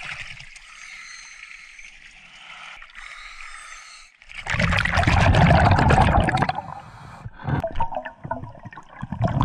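Water lapping and trickling at the surface beside a wooden dock, then, about four seconds in, a loud rush of water and bubbles for about two seconds as the camera goes under, followed by scattered underwater bubbling and gurgling.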